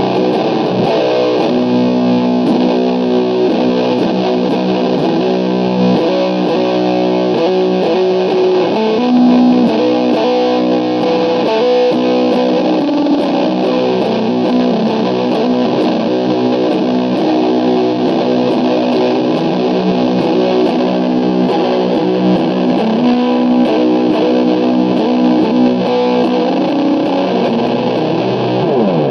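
Heavily distorted electric guitar from an SG-style solid-body played through an Orange combo amp, playing a slow doom/sludge riff of long, held notes and chords that change about every second.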